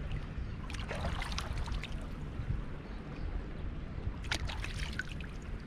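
Small splashes and trickles of sea water as a skinned fish is rinsed by hand in the shallows, in short bursts about a second in and again around four seconds in, over a low steady rumble.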